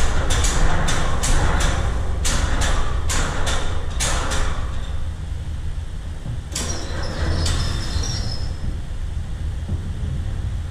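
Metal workshop noise: a steady low rumble with a quick run of sharp metallic knocks, about three a second, that stops about four and a half seconds in. A few more knocks come around the middle.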